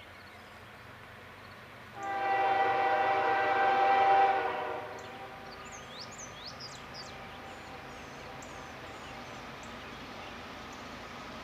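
Lead CSX ES44DC diesel locomotive's air horn sounding one long blast of about two and a half seconds, a chord of several steady tones, that tails off at the end.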